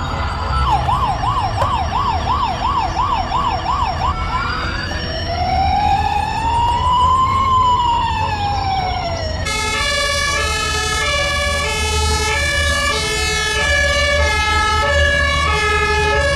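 Emergency-vehicle siren cycling through its patterns: a fast yelp sweeping up and down about twice a second, then one slow wail rising and falling, then from about ten seconds in an alternating two-tone hi-lo siren.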